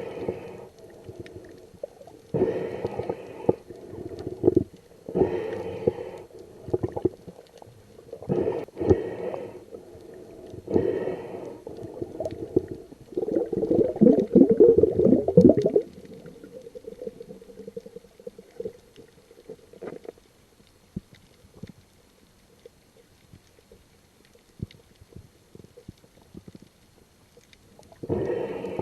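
Whale calls: a series of separate calls, each a second or two long, every two to three seconds, the longest and loudest one about halfway through; after it only faint scattered ticks remain.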